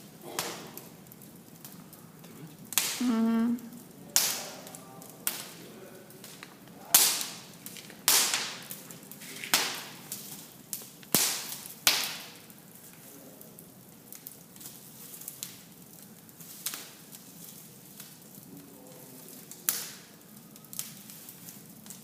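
Wood fire burning in an open fireplace, crackling with sharp irregular pops and snaps, densest in the first half and thinning out later. A short steady hum sounds about three seconds in.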